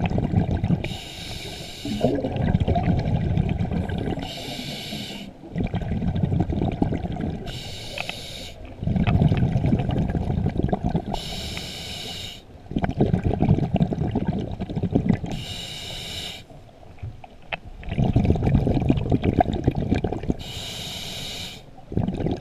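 Scuba diver breathing through a regulator underwater: a hissing inhale through the demand valve about every three and a half seconds, six in all, each followed by a longer rumble of exhaled bubbles.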